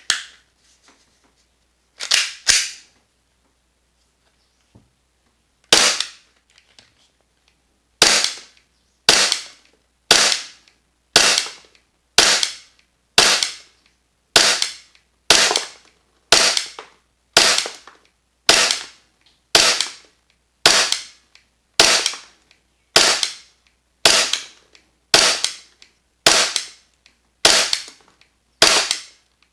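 VFC/Umarex Glock 45 gas blowback airsoft pistol fired semi-automatically, fitted with an energy-saving cylinder bulb and strong spring: a few sharp clacks early on, then a long, evenly paced string of about twenty shots, roughly one a second, each a crack of the gas blowback with the slide cycling.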